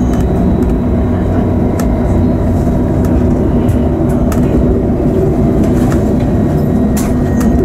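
Diesel regional railcar running, heard from inside the driver's cab: a steady low drone of engine and wheels on rail, with a few sharp clicks as it rolls over track joints and points.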